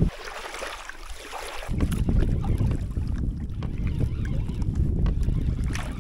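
Small waves lapping at a sandy shore. About two seconds in, this gives way to steady wind buffeting the microphone out on choppy open water.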